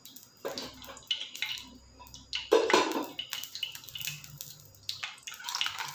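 Oil crackling and spitting on a hot flat tawa as it heats, with a louder clatter of kitchenware about two and a half seconds in.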